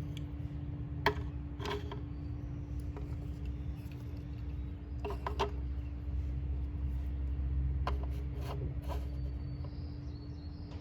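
Plastic shape-sorter pieces being handled and knocked against the toy box: a handful of short sharp clicks, several in quick pairs, over a steady low hum.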